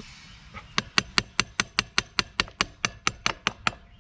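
Ratchet wrench clicking in an even run of about five clicks a second as it turns the motorcycle's rear chain adjuster bolt.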